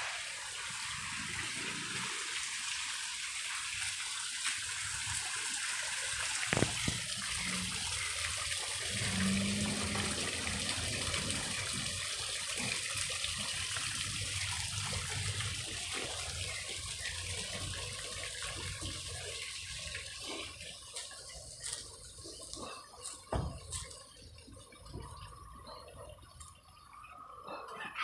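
Water splashing steadily from a small rock fountain, fading away about two-thirds of the way through. A few short knocks stand out, the sharpest about a quarter of the way in.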